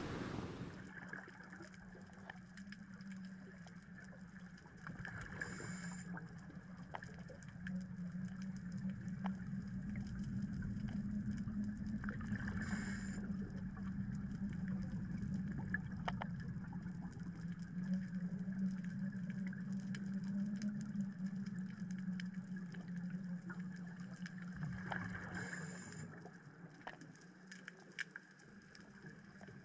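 Underwater sound heard through a dive camera's housing: a steady low hum under a wash of water noise, with a scuba regulator hissing briefly three times, about 6, 13 and 25 seconds apart, as the diver breathes.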